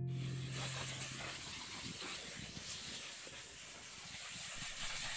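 Steady high outdoor hiss with faint small ticks, as a low guitar note dies away in the first second.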